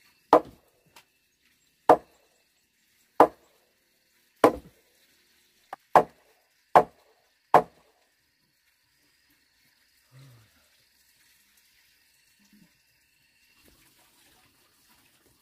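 Seven sharp blows of a tool striking wooden poles, about a second and a half apart at first, then coming quicker, stopping about eight seconds in.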